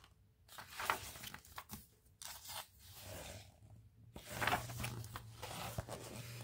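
Pages of a hardcover picture book being turned and handled: several short, irregular papery rustles and crinkles.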